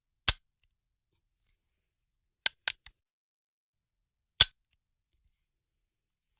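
Short, sharp gun-like cracks from a weapon sound effect: a single one, then three in quick succession about two seconds later with the last fainter, then one more about two seconds after that.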